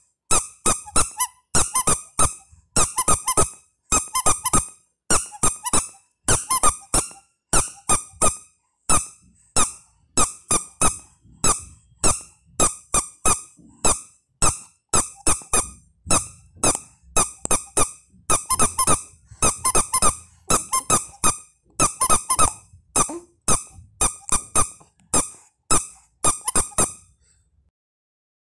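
Baby toys being sounded over and over: a squeaky rubber duck and a rattle, in quick clusters of short squeaks and clicks that stop near the end.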